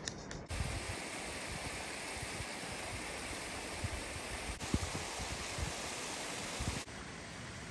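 Wind rushing over the microphone, a steady hiss with irregular low buffeting gusts. The noise jumps in level about half a second in and drops again near the end, where the footage is cut.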